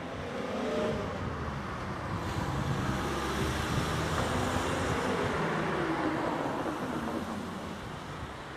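Cars driving past on the road, one after another: tyre and engine noise that swells within the first second, stays loud through the middle and eases off near the end.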